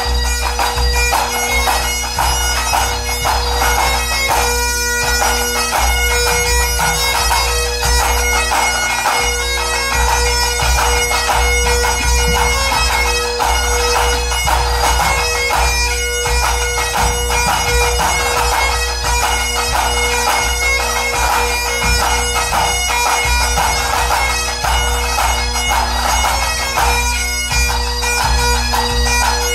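Scottish pipe band playing: Great Highland bagpipes sounding a melody over their steady drones, with drums beating underneath.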